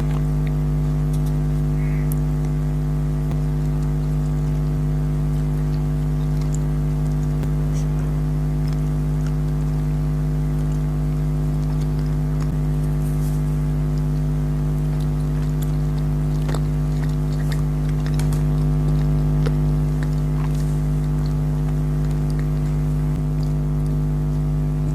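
A steady mechanical hum at one unchanging pitch, with several overtones, and faint scattered clicks and rustles over it.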